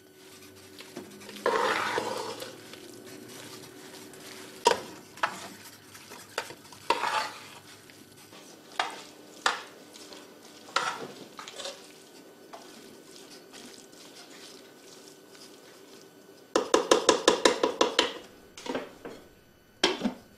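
A spoon stirring thick stew in an aluminium cooking pot: a series of scrapes and knocks against the pot. Near the end comes a quick rattling run of about a dozen sharp clicks, then a few more knocks.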